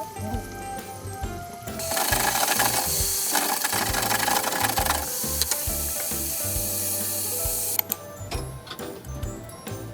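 Background music, with a loud, harsh hissing noise with a fine rapid rattle starting about two seconds in, lasting about six seconds, and cutting off suddenly.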